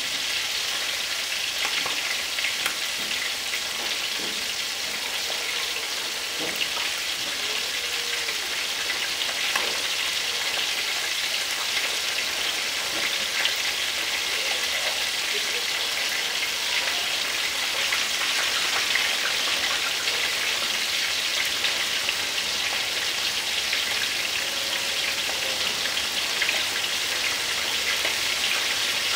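Whole fish deep-frying in hot oil in a round electric pan: a steady sizzle with dense fine crackling.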